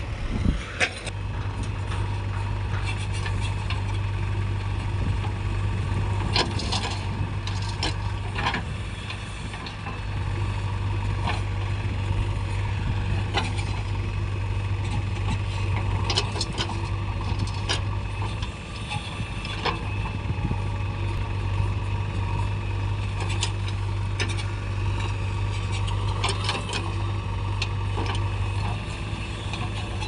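Diesel engines of a JCB 3DX backhoe loader and a Mahindra 475 DI tractor running with a steady low drone. Scattered knocks and clatter come from the backhoe bucket digging and dumping earth into the tractor's trolley.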